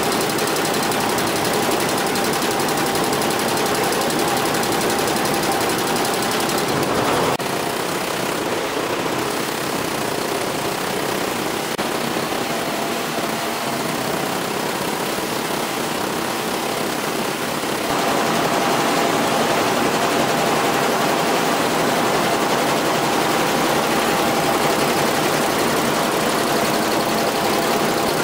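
Multi-head Jintel computerized embroidery machine running, its needle heads stitching in a fast, steady mechanical clatter; it drops slightly about seven seconds in and gets louder again past the middle.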